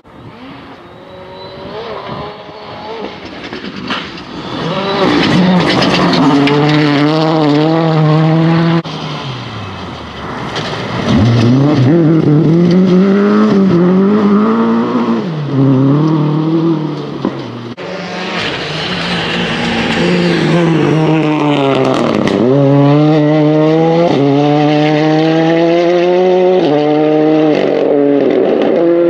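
Rally cars at full throttle on a gravel forest stage, one pass after another. The engine note climbs and drops through gear changes and lifts. It starts faint and grows loud over the first few seconds as the first car arrives; mid-way a Mk2 Ford Escort slides through a corner with gravel spraying from its tyres.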